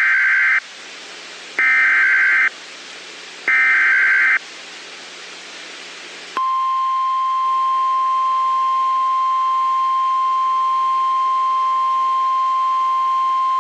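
NOAA Weather Radio Emergency Alert System activation: three short screeching SAME data bursts of about a second each, with radio hiss between them, then about six seconds in the steady single-pitch 1050 Hz weather radio warning alarm tone begins and holds. Together they signal an incoming warning, here a severe thunderstorm warning.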